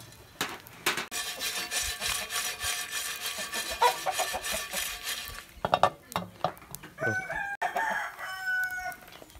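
A rooster crowing in one long call through the first half, then shorter chicken calls and clucks in the second half.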